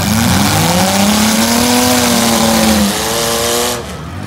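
Six-cylinder demolition derby car engines revving hard, one engine's pitch climbing and then falling over a constant engine din. The noise drops off shortly before the end.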